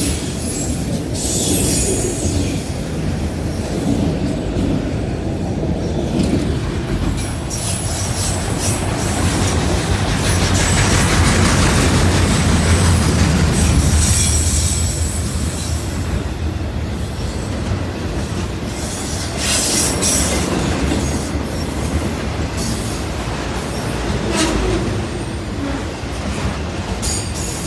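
Freight cars of CSX manifest train M216 rolling past on the rails: a steady loud rumble of wheels on track that swells in the middle. A few brief sharp high-pitched sounds ring out over it, near the start and twice in the later part.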